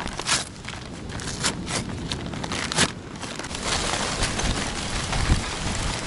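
Stiff paper charcoal bag being torn and unfolded open, with crackling rustles and sharp crinkles. About three and a half seconds in, a denser rattling rush begins as the bag is tipped and charcoal pours into a steel mangal.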